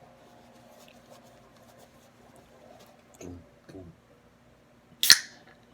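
Faint small clicks and handling noise over a steady low hum, then one sharp click with a brief hiss about five seconds in.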